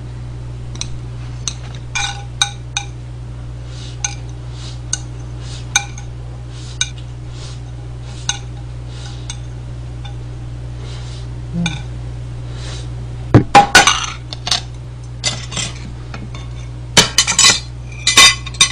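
Metal chopsticks tapping and scraping on a plate, many short clicks, as the last noodles are gathered up. Then louder clattering of plates, a spoon and chopsticks knocking together as the dishes are stacked, once about two-thirds of the way in and again near the end.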